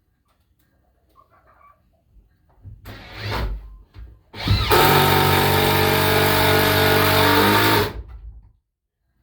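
Cordless drill driving a screw into wood: a short burst about three seconds in, then a steady run of about three seconds whose pitch drops as it stops near the end.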